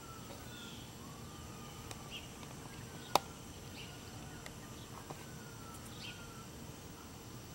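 Faint backyard ambience: a steady insect buzz, with a few soft falling whistled bird calls and short high chirps. One sharp click sounds about three seconds in.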